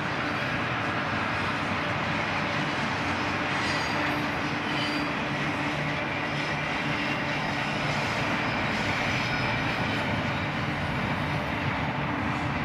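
Double-stack intermodal freight cars rolling past at speed, a steady rumble of steel wheels on the rails.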